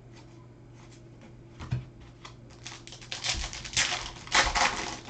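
Baseball trading cards being handled and flipped through by hand: a soft knock, then a run of clicks and rustling card-on-card slides, loudest about four seconds in.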